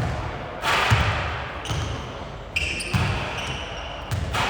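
Strong gusty wind buffeting the microphone: irregular low rumbling thuds with surges of rushing hiss, about one gust a second.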